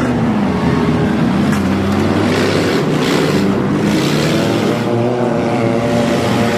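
Several demolition derby cars' engines running and revving together, their pitches rising and falling across one another.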